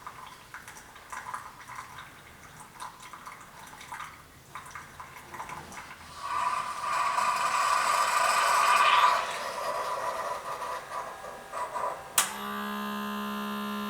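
Keurig K45 coffee brewer dispensing into the cup: faint trickling, then a louder hissing stretch of about three seconds that tapers off. Near the end a click, and a steady pump hum starts as the machine draws water in to refill for the next brew.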